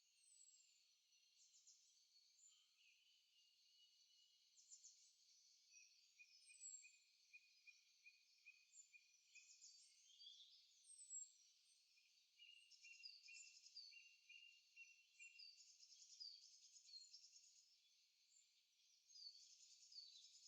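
Several songbirds singing faintly in a forest chorus: overlapping high chirps, short falling whistles, quick trills and runs of evenly repeated notes.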